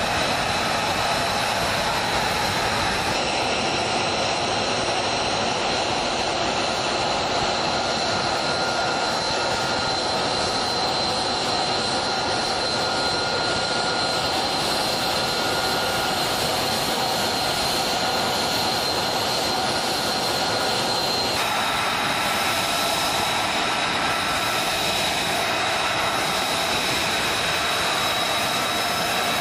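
F-35B Lightning II fighter's Pratt & Whitney F135 turbofan running at ground idle: a steady, loud jet whine with a high piercing tone over a rushing hiss.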